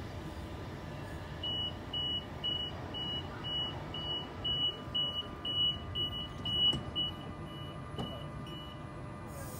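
An electronic beeper sounding about twice a second on one high tone, growing louder and then fading until it stops, over a steady low rumble.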